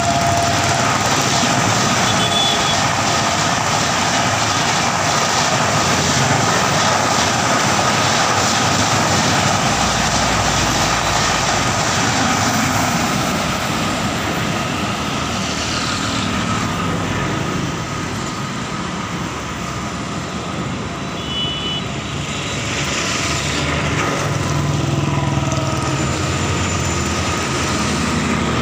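Indian Railways express trains on the line: the coaches of the August Kranti Rajdhani run past and away with a steady rumble of wheels on rails. The noise dips briefly, then builds again in the last few seconds as a second electric-hauled express approaches.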